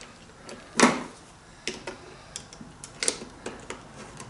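Scattered metal clicks and taps of a washer, nylock nut and bolt being handled, and of an adjustable wrench and screwdriver being set on them, with one louder knock about a second in.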